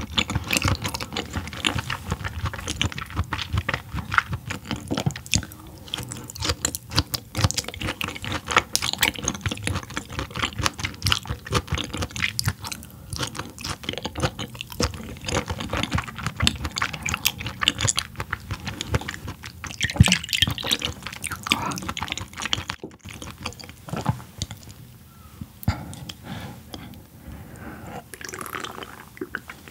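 Close-up chewing of raw yellowtail sashimi: soft mouth smacks and small clicks that come in irregular runs.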